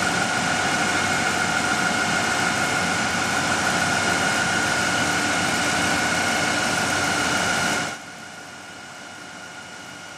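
Machine-shop noise: a steady mechanical hiss with a high whine, from machine tools running. It cuts off suddenly about eight seconds in, leaving a quieter steady hiss.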